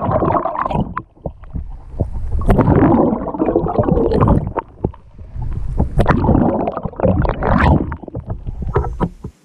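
Canoe paddling close to the microphone: loud splashing and rushing water in three surges, each a couple of seconds long, with sharp knocks mixed in.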